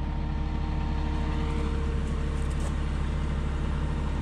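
An engine idling steadily, a deep even hum with a regular pulse.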